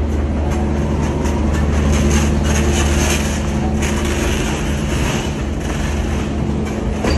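A loaded pallet being hand-pulled across a trailer's ridged metal floor, rattling and clattering unevenly, over a steady low engine hum.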